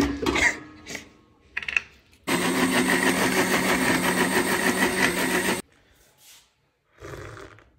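Electric blender running for about three seconds, blending milk, bananas and protein powder into a shake; it starts about two seconds in with a steady hum and cuts off suddenly. A few short knocks before it.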